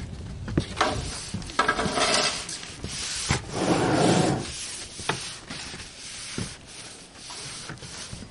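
Push broom swept over a roofing membrane laid on a plywood roof deck: several rough scraping strokes, the longest about a second long in the middle, with a few sharp knocks.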